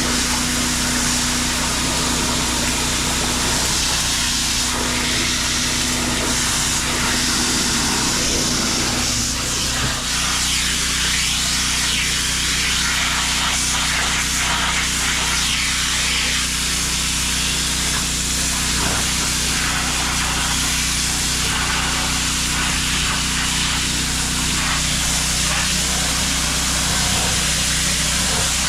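Pressure washer running steadily: an engine drone under the hiss of the high-pressure water jet.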